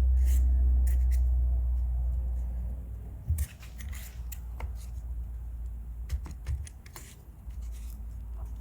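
Short clicks and scrapes of shotgun stock parts being handled and fitted together, as the stock tube goes back onto the pistol grip. A low rumble runs under the first three seconds and then fades.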